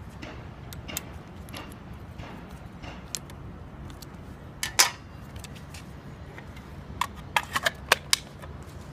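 Sharp clicks and clacks of plastic and metal parts being handled and snapped together on a Makita DSD180 cordless drywall saw during a blade change. There is one loud clack about five seconds in and a quick run of clicks near the end.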